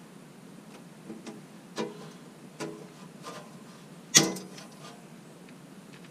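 Hand pop-rivet tool being squeezed, giving a few light clicks, then one loud sharp snap about four seconds in as the rivet's mandrel breaks off and the rivet sets.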